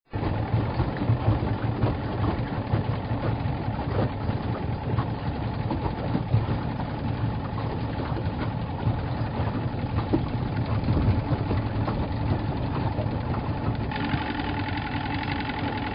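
Boat's outboard motor running steadily under way. Its tone changes slightly about fourteen seconds in.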